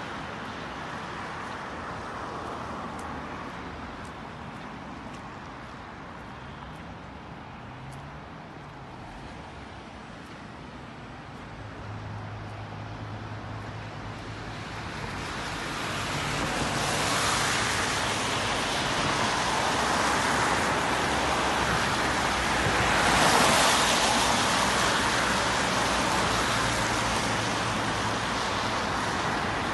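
Road traffic passing on a wet road: the steady wash of tyres and engines. It is quieter at first and grows louder from about halfway, as cars swish past close by, loudest twice.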